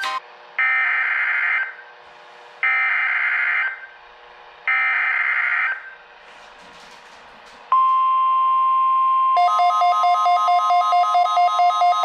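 Emergency Alert System SAME header for a NOAA Weather Radio weekly test: three one-second bursts of warbling digital data, about a second apart. Then comes the 1050 Hz weather radio warning alarm, a single steady high tone, and about a second and a half later a rapid pulsing beep, about five pulses a second, joins over it.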